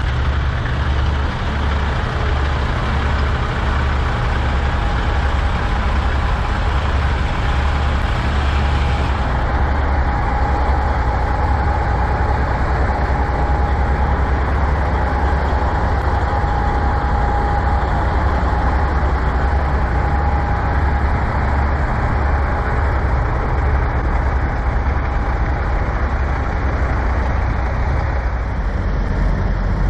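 Heavy diesel semi-truck engine idling steadily, a low even pulsing throb. A faint steady whine joins it about ten seconds in and fades out some twelve seconds later.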